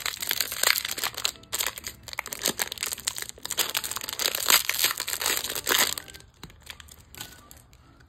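Thin clear plastic wrapper crinkling and crackling as a lump of soft foam clay is squeezed and peeled out of it. The dense crackle dies down about six seconds in.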